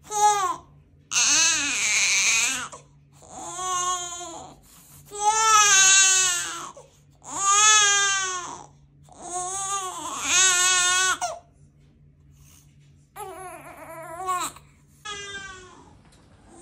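Infant crying: about six loud wails with short pauses between, then quieter, broken crying near the end.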